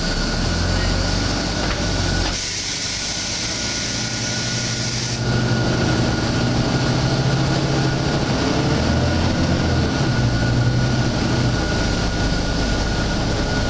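Volvo B9TL double-decker bus's six-cylinder diesel engine and drivetrain running under the passengers, with a steady high whine throughout. A hiss comes up between about 2 and 5 seconds in, then the engine note grows louder as the bus pulls.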